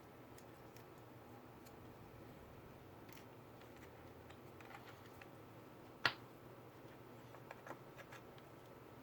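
Small clicks and taps of hard parts being handled while working on a laptop, with one sharp click about six seconds in and a few lighter clicks soon after, over a faint steady hum.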